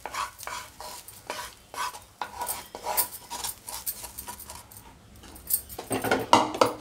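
A wooden spatula scraping and knocking fried grated coconut out of a frying pan into a plate of cooked rice, with repeated short scrapes and clinks. A louder flurry near the end as the rice is stirred in the plate.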